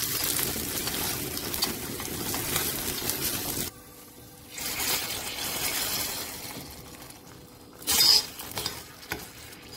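Tomato and pepper paste sizzling in hot oil in a stainless steel pan while a metal spoon stirs and scrapes it. After a sudden break about four seconds in, hot soup broth is ladled into the pan and stirred, with a sharp clink of metal on the pan near the eighth second.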